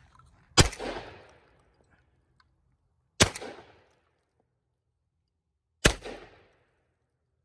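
Three gunshots from a firearm at target practice, spaced about two and a half seconds apart, each followed by a short echoing tail.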